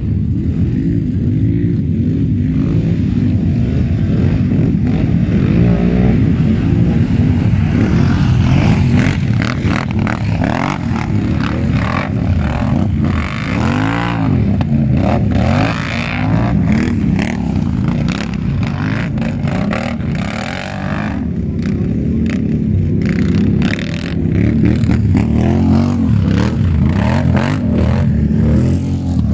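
ATV engines revving up and down over and over, the pitch rising and falling every second or two, with scattered knocks and clatter.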